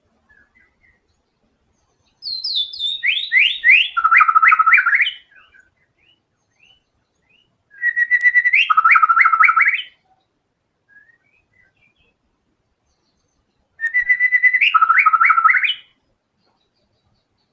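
White-rumped shama (murai batu) in full song: three loud phrases a few seconds apart, each a quick run of repeated sliding whistled notes, with a few faint soft notes in the pauses between them.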